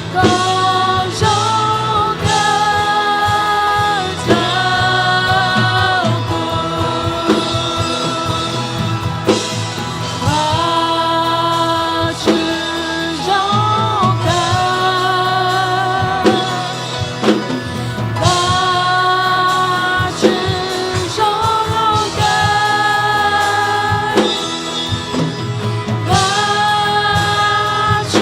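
Christian worship song: voices singing long held melody lines over a band accompaniment with bass and drums.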